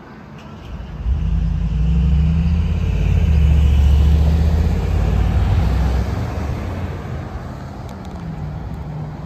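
A motor vehicle passing on a city street. Its low engine rumble builds about a second in, is loudest around four seconds in, and fades after about six seconds.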